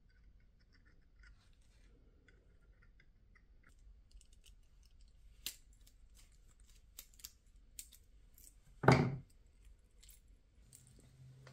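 Small metallic clicks of split-ring pliers and treble hooks as hooks are fitted to the split rings of a jointed wooden swimbait, with one louder knock about nine seconds in.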